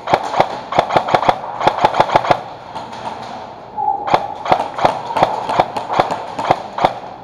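Airsoft guns firing in two quick strings of sharp shots, about a dozen, a short pause, then about ten more, at roughly three to four shots a second.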